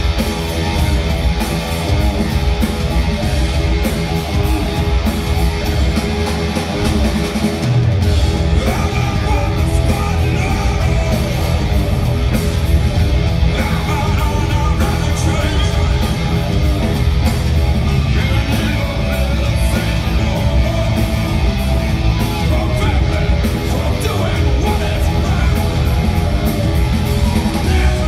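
Live rock band playing loudly: electric guitar, bass and drums, with a singer's voice over the top.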